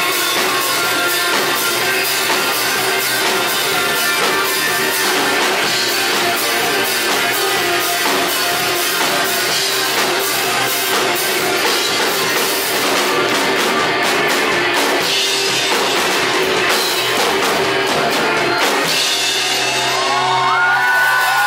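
Rock band playing live: distorted electric guitar, electric bass and a drum kit with steady cymbal and snare hits. The drumming thins out past the middle, and near the end a held final chord rings while audience whoops begin.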